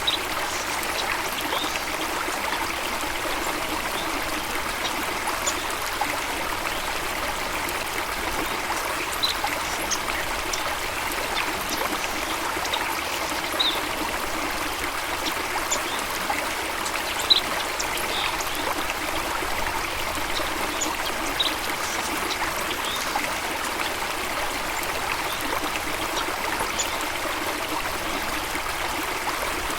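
Stream water trickling and babbling steadily, with a few brief high-pitched notes every few seconds.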